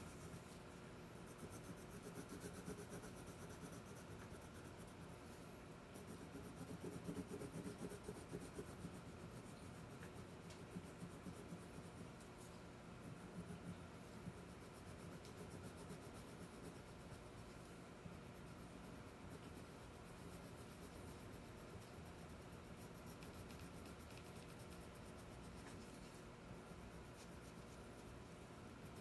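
Faint scratching of a jumbo wax crayon rubbing back and forth on paper as an area is coloured in, a little louder about seven seconds in.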